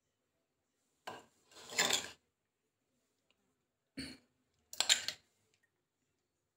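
A spoon scraping yogurt out of a terracotta bowl, twice, about a second in and again about four seconds in.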